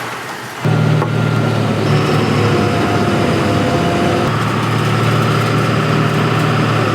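A vehicle engine running steadily at a low hum. It cuts in abruptly about half a second in and holds level.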